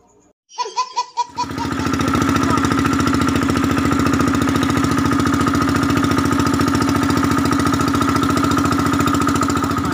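Small fishing boat's engine running steadily at an even speed, coming in about a second in.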